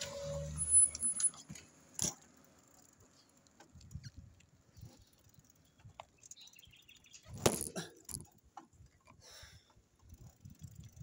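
Bicycle rattling and clicking while ridden over rough ground, with loud clattering knocks about a second in, at about two seconds, and again past seven seconds.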